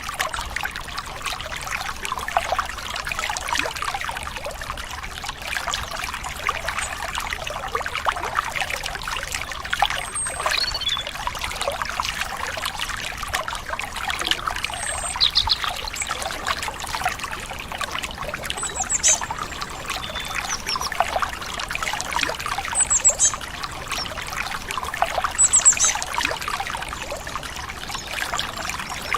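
Stream water trickling and splashing steadily, with short high bird chirps now and then, a few louder ones in the second half.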